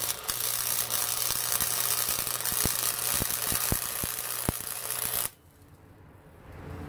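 Flux-core wire-feed welder arc crackling and hissing steadily, with several sharp pops of spatter, then stopping abruptly about five seconds in.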